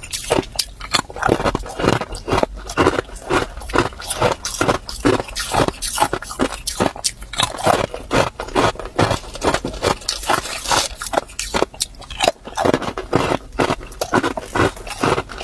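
Hard clear ice cubes crunched between the teeth, close-miked: an unbroken run of sharp, irregular crunches, several a second.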